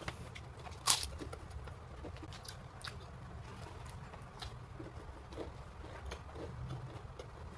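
A person eating crisp fried food up close: one loud crunchy bite about a second in, then steady chewing with small mouth clicks.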